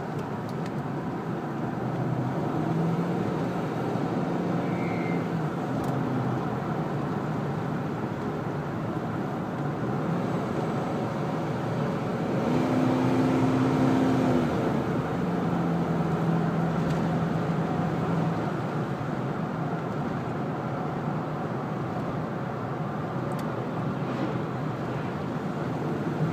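A 1998 Ford Expedition's 4.6 V8 running, with an odd harmonic hum that comes and goes over the steady vehicle noise. The hum sounds in stretches of a few seconds, one higher-pitched and loudest about halfway through. The owner suspects the belt tensioner he installed two weeks earlier.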